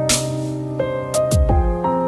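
Soft piano-led background music with a slow beat: a splashy snare-like hit at the start and a deep kick drum about one and a half seconds in.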